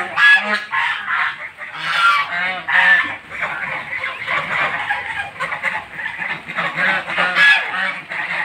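Domestic geese honking over and over in short calls, with the loudest honks about a third of a second in, at about two and three seconds, and near seven and a half seconds.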